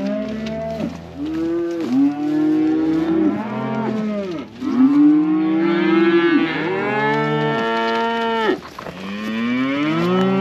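Cattle mooing from a group of freshly weaned calves and their leader cows: a string of about five or six long, loud moos, some overlapping, following one another with short breaks.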